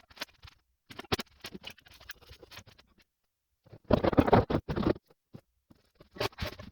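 Hand tools and metal parts clicking and rattling during work on an A/C compressor clutch. Scattered clicks come first, then a louder run of rapid clicks about four seconds in, and a short cluster near the end.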